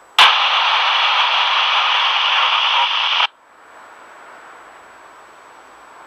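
Handheld FM radio's speaker putting out loud static hiss with no voice, in a gap in the International Space Station's voice downlink. The hiss starts suddenly just after the start, lasts about three seconds, then cuts off sharply to a faint hiss.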